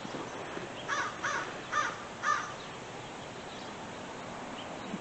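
American crow cawing four times in quick succession, harsh calls about half a second apart.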